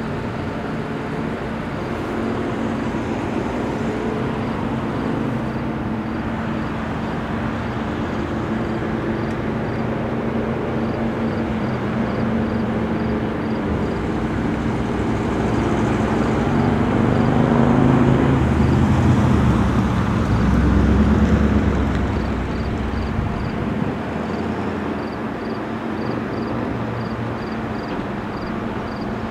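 Car driving on a road: steady engine and tyre noise that swells louder for several seconds past the middle, then settles back.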